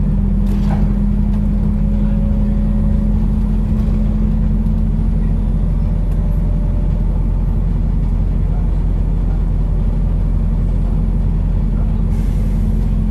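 Cabin noise on the upper deck of a moving New Routemaster diesel-electric hybrid double-decker bus: a steady low drone of the drivetrain and road, with a steady hum that eases about four seconds in and comes back near the end. A brief hiss sounds near the end.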